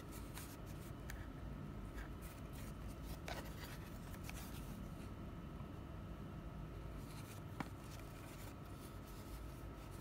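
Faint handling of a plastic blister pack on a cardboard backing card, rubbed and turned over in the hands, giving scattered light scrapes and ticks over a faint steady hum.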